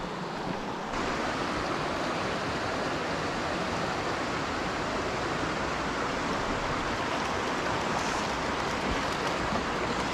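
Small mountain stream flowing over stones: a steady rush of water that gets a little louder about a second in.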